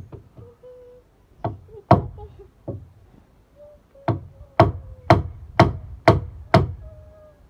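Hammer striking a wooden board: a few scattered blows, then six steady blows about half a second apart.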